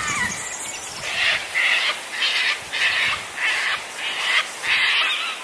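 A bird giving a run of about seven harsh, rasping calls, roughly two a second. Other birdsong warbles faintly at the start.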